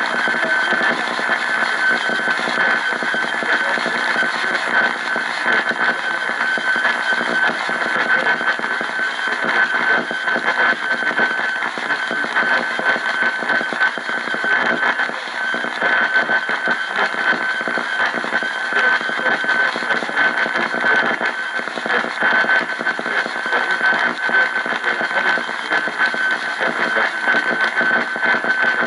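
AM radio receiver hissing and crackling with static and interference, a steady high whine running through the noise.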